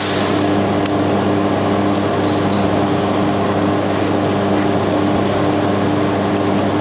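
Steady machine hum with an even fan-like rush, from the laser welding machine running, with a few faint light clicks.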